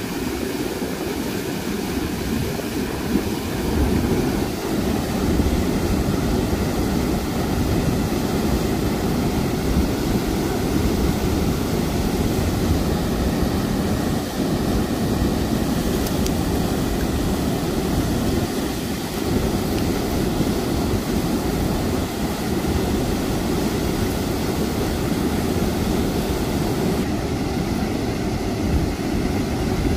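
Steady rushing of flowing river water, a continuous low-heavy roar.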